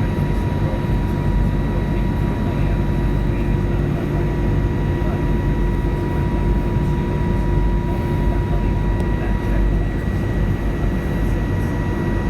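Cabin noise of an Airbus A321neo airliner in flight: a steady engine and airflow roar with a few steady whine tones laid over it.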